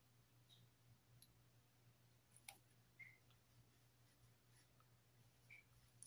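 Near silence: room tone with a low steady hum and a few faint, scattered clicks, the clearest about two and a half seconds in.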